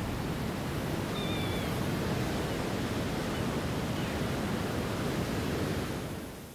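Steady rushing of wind and sea surf, with a faint, brief high call about a second in; the rush fades away near the end.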